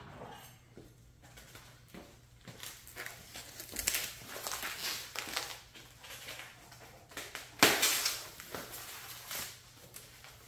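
Plastic packaging wrap rustling and crinkling as a wrapped motorcycle front fender is lifted off the crate and handled, in uneven bursts, the loudest about three quarters of the way through.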